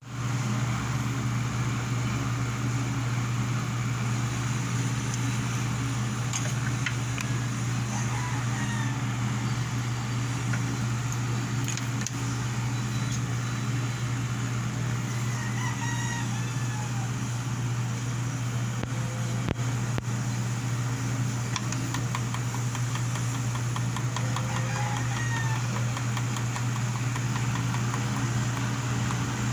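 An electric fan motor running with a steady low hum, while chickens cluck and chirp a few times in the background.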